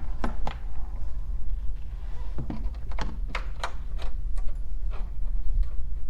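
Scattered knocks and clicks as a UTV's rear fascia panel is handled and lined up on its mounting points, about a dozen short taps of uneven spacing.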